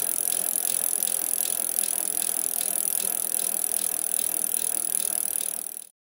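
A bicycle rolling along a trail: a steady hiss of tyres and drivetrain with a light, regular ticking. It cuts off near the end.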